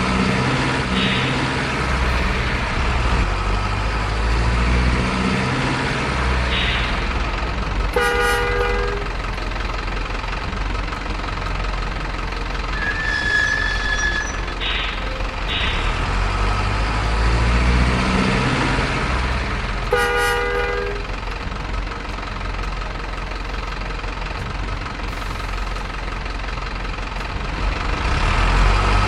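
Heavy diesel trucks running with a steady low rumble, with two horn blasts of about a second each, roughly twelve seconds apart.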